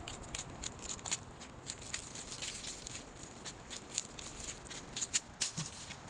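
Thin plastic bag crinkling and rustling in the hand, a quick irregular run of small crackles.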